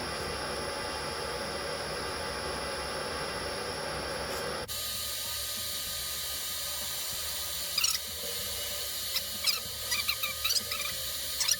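Newly installed metal lathe running steadily on its warm-up run. About halfway through the sound changes abruptly. In the second half come several short, high squeaks.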